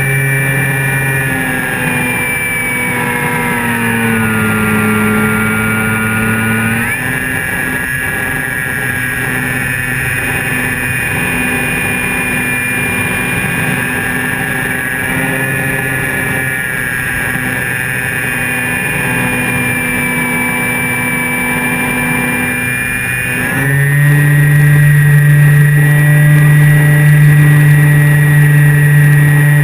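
Electric motor and propeller of a Flyzone Calypso RC plane, heard from under its wing, running with a steady hum. The pitch dips about four seconds in, comes back up about seven seconds in, and the sound gets louder from about 24 seconds in.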